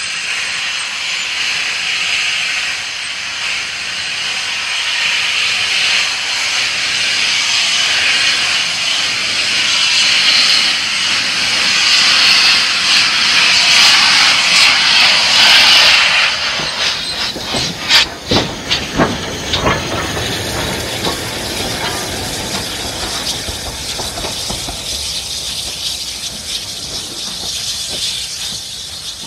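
Steam locomotive passing close by with a loud, steady hiss of steam that builds to its loudest about halfway through. A run of sharp exhaust chuffs follows, then quieter hissing and running noise as it moves away.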